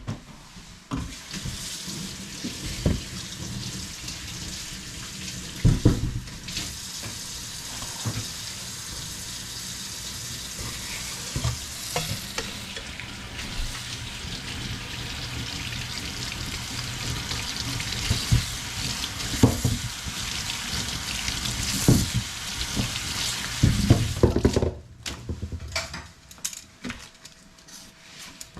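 Food frying in a pan: a steady sizzle with occasional knocks of a utensil stirring against the pan. The sizzle stops suddenly near the end.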